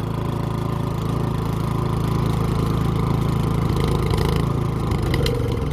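Toro 1000 Series snowblower engine running steadily, just cold-started on choke after sitting unused for years.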